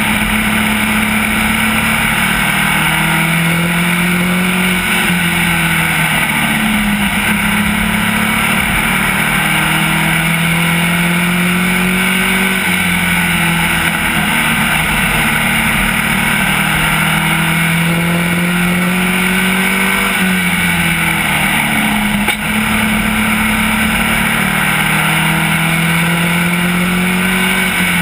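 SK Lite modified race car engine heard from inside the cockpit at racing speed on a short oval. Its pitch climbs on each straight and drops off into each turn, about every seven seconds.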